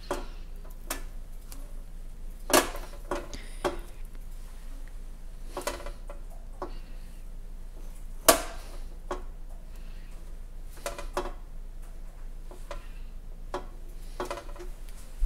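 Kitchen knife scoring the fat of a raw pork belly on a wire rack in a metal sheet pan: irregular short scraping cuts and sharp metallic clicks. The loudest clicks come about two and a half and eight seconds in.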